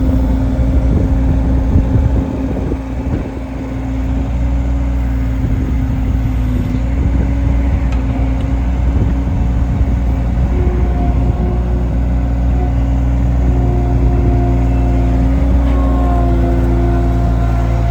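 Diesel engine of a 2012 Mustang skid steer loader running steadily, easing off briefly about three seconds in before settling back to a constant level.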